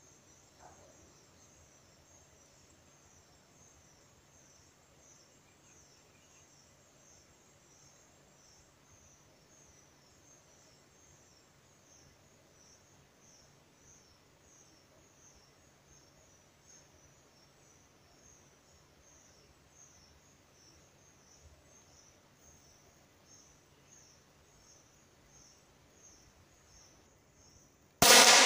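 Insects chirping faintly in a steady high-pitched pulsing rhythm, a few pulses a second. Near the end comes a single sharp, loud air pistol shot that rings out briefly.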